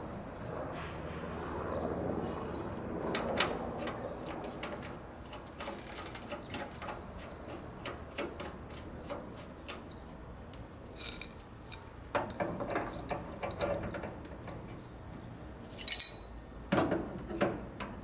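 Scattered clicks and light metal clinks from handling an air conditioner outdoor unit's service-valve fittings and adjustable wrenches, with a sharper ringing metal clink about two seconds before the end as the wrenches go onto the flare nut.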